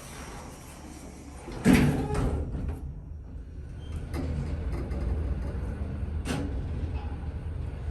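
Elevator doors sliding shut with a loud knock about two seconds in, then the 1951 elevator car starting to travel with a steady low rumble, two sharp clicks a couple of seconds apart during the ride.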